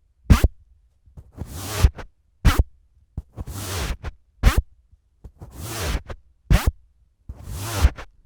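Microphone wind sock being worked on and off the microphone, close up, over and over: each time a rising rustling swish followed by a short deep whomp, about four times.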